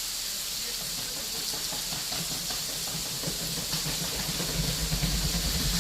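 Heavy rain hissing steadily. From about four seconds in, a vehicle's engine rumble grows louder as it approaches.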